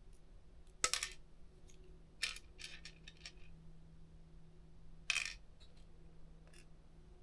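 Small hard clicks and taps of a screwdriver and a small screw against a ThinkPad T430's chassis as the internal speaker's single screw is taken out. There is a sharp click about a second in, a quick run of lighter ticks between two and three and a half seconds, and another sharp click about five seconds in.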